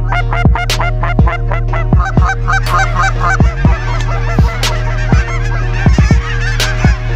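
A large flock of snow geese calling, a dense clamor of many overlapping high yelps, over background music with held bass notes and a steady beat.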